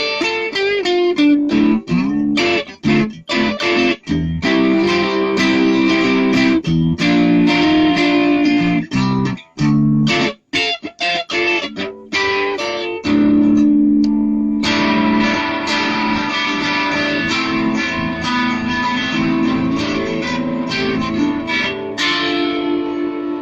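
Home-built ash-body electric guitar being played: picked notes and chords broken by a few short stops around the middle, then longer held chords, with a fresh chord struck and left ringing near the end.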